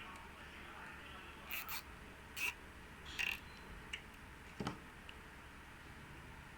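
Plastic cable tie being pulled tight around a water hose, heard as a few short ratcheting rasps, followed by a light tap and a sharper knock.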